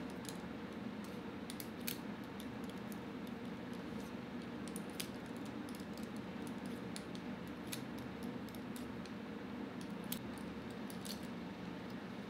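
Scattered faint metallic clicks and ticks of an Allen key turning the screws out of a Walther Rotex RM8's regulator and fill-assembly block, over a steady low hum.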